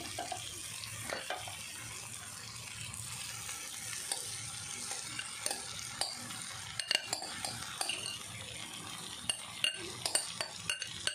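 A slotted metal spatula stirring flattened rice (poha) into frying vegetables in a metal wok (kadhai), over a steady faint sizzle. Short scrapes and clicks of the spatula against the pan come more often in the second half.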